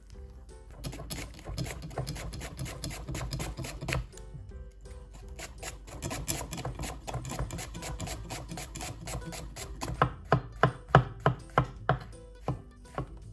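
Kitchen knife chopping on a cutting board: a dense run of quick, light cuts, then near the end a series of sharper, louder chops at about three a second.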